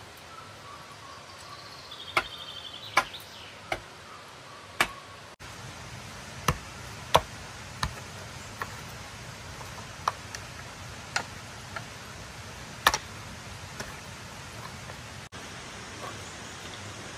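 Metal shovel and hoe blades striking and scraping soil and stones in irregular sharp strikes, about one a second, over a steady hiss. A bird trills briefly in the first few seconds.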